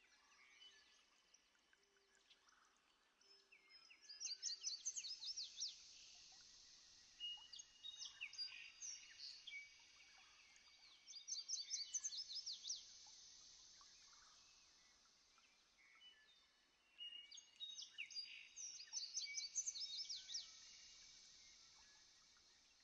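Birds singing and calling outdoors in several bouts of quick, repeated high notes, with quieter gaps between the bouts.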